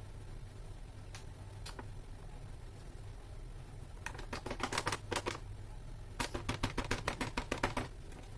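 Flour bag crinkling in quick crackly rattles as flour is shaken out of it into a bread maker pan, in two spells about four and six seconds in, over a low steady hum.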